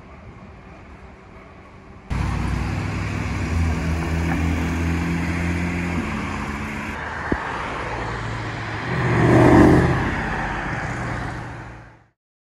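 Quiet street sound, then about two seconds in a loud sports-car engine starts abruptly: a Porsche 992 GT3 RS's flat-six driving through a junction. A car then passes close, its engine note rising and falling, loudest about nine and a half seconds in, and the sound fades out near the end.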